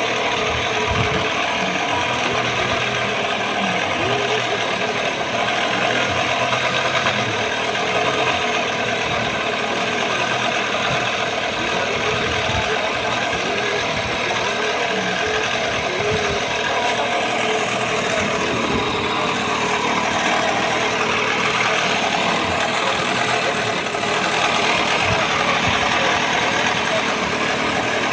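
An engine aboard a wooden fishing boat running steadily at idle, an even drone with no change in speed.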